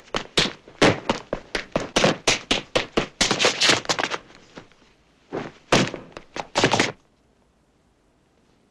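Foley footsteps: hard-soled shoes stamping quickly on a foley-stage floor, several steps a second, for running footsteps. They thin out to a few heavier stomps and stop about seven seconds in.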